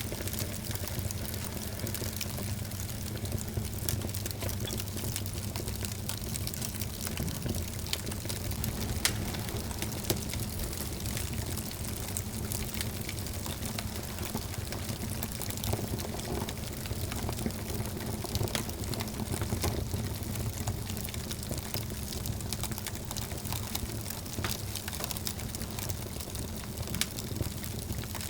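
Wood fire burning in a fireplace: a steady low rushing, with frequent small crackles and pops from the burning logs and two sharper pops about nine and ten seconds in.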